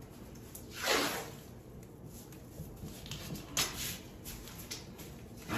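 Thin plastic sheeting rustling and crinkling as it is handled and pressed against a wall, with a short louder rustle about a second in and a sharp click a little past halfway.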